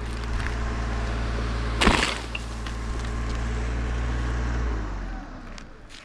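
Chainsaw idling steadily, then stopping about five seconds in. About two seconds in comes a single heavy thud as the cut-off pine top hits the ground.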